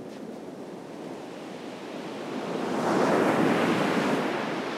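Ocean surf on a beach: a wave breaks and washes up, swelling to its loudest a little past halfway and then fading. Some wind on the microphone.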